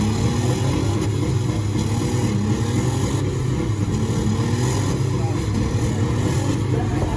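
Demolition derby cars' engines running and revving, a steady low drone with wavering pitch.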